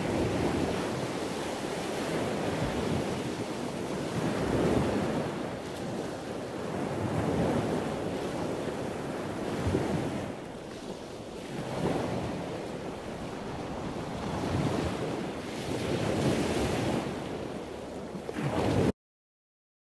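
Concept2 rowing erg's air-resistance flywheel whirring, the whoosh swelling and fading with each stroke about every two and a half seconds. It cuts off abruptly near the end.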